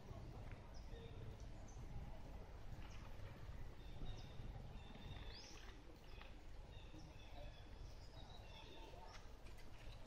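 Quiet outdoor ambience: a steady low rumble with scattered faint high chirps and short whistles, and one rising whistle about five seconds in.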